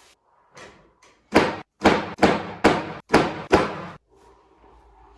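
A spine being cracked during a chiropractic ring dinger adjustment: six loud, sharp cracks in quick succession, a little over two a second, starting about a second and a half in, with two faint ones just before.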